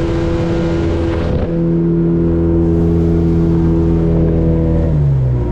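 Mercury outboard motor on a small motorboat running steadily at speed, with the hiss of spray and wind for about the first second and a half. Its pitch drops a little near the end.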